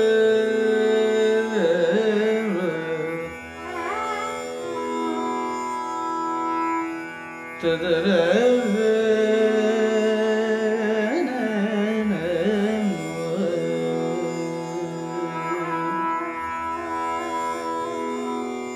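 Carnatic vocal music in raga Gowlai: a male voice sings slow, heavily ornamented phrases over a steady drone, with a violin following the melody.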